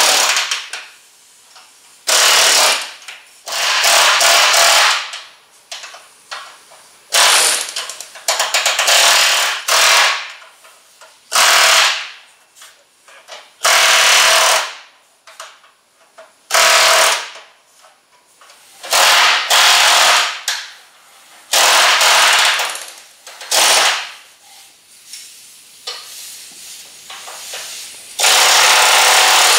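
Pneumatic air chisel hammering against the car's sheet-metal core support and apron, in about a dozen loud, rattling bursts of a second or so with short pauses between. It is breaking through the remaining spot welds so the crash-damaged front section can come off.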